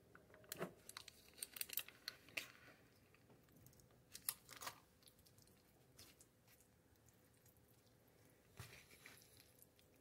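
Faint, scattered clicks and crunchy crackles in a few short clusters, from seasoning being shaken or ground over mashed potatoes in a plastic tray.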